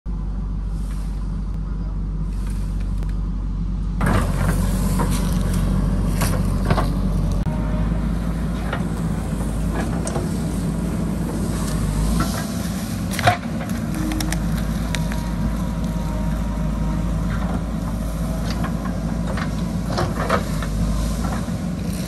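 JCB backhoe loader's diesel engine running steadily under load. From about four seconds in, the bucket scrapes and clatters through soil and roots, with a sharp knock about thirteen seconds in.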